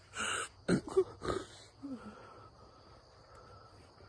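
A man laughing in several short, breathy bursts during the first second and a half, muffled behind his hand.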